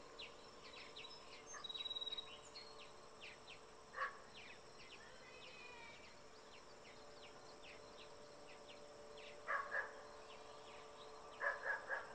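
Quiet outdoor ambience: insects buzzing steadily with many short high chirps, and a few short animal calls, one about four seconds in and two quick groups near the end.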